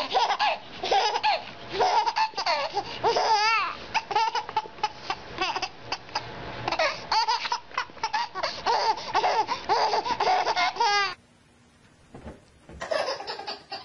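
A baby laughing hard in quick repeated bursts, with a couple of high squealing peaks. The laughter cuts off abruptly at about eleven seconds. After a short near-silent gap, laughter starts again near the end.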